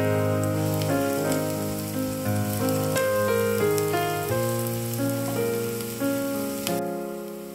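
Diced onions frying in hot oil in a pan: a steady crackling sizzle that cuts off suddenly near the end. Gentle piano background music plays over it and is louder than the sizzle.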